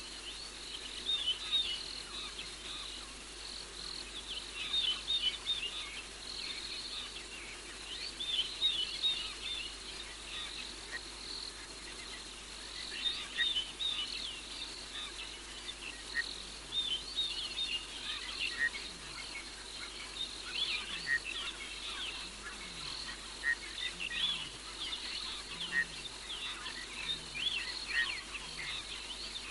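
A night chorus of insects, crickets among them, chirping and trilling in quick overlapping runs. In the second half, faint low calls slide down in pitch every second or two.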